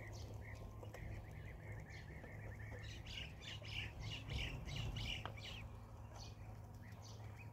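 Domestic ducklings peeping, a rapid string of short high-pitched peeps that is busiest in the middle, over a steady low hum.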